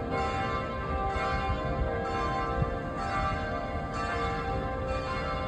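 Church bells of Pulaski Heights United Methodist Church ringing, a fresh stroke about once a second with each tone hanging on into the next, over a low rumble.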